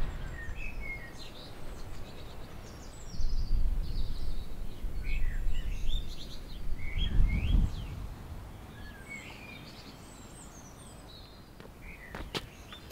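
Small songbirds chirping, many short rising and falling notes, over gusts of wind rumbling on the microphone. Near the end there are a couple of sharp knocks.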